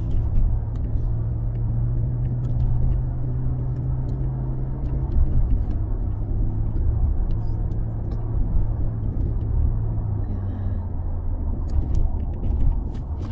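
Car engine hum and tyre noise heard from inside the cabin while driving steadily along a paved road; the engine note steps down slightly about five seconds in.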